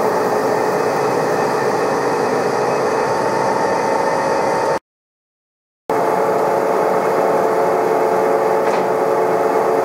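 TOS SN63B lathe running under load while a square carbide insert cuts metal on a large workpiece, at about 2 mm depth of cut and 0.22 mm per revolution feed: a steady machine hum with several level tones and a cutting hiss. About five seconds in, the sound cuts out completely for about a second, then resumes unchanged.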